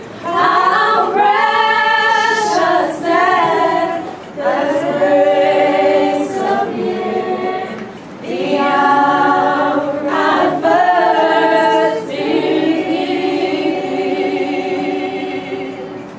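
Women's voices singing unaccompanied together, in phrases of a few seconds with short breaks between them; the last phrase is held and fades near the end.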